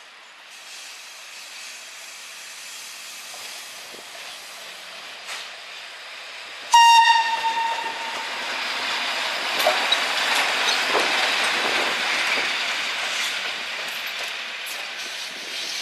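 FS class E.646 electric locomotive approaching and running past, sounding one short horn blast about seven seconds in. After the blast comes the rumble and clatter of its wheels on the rails, loudest a few seconds later as it goes by, then easing off.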